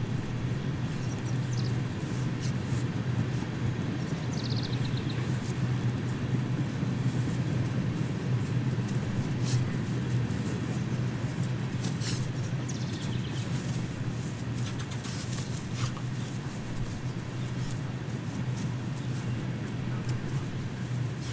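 Steady low hum like a distant motor running, over an outdoor background haze, with a few short high chirps and faint ticks.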